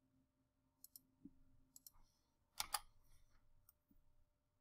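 Faint computer mouse button clicks, a few scattered single clicks with two louder ones close together about two and a half seconds in.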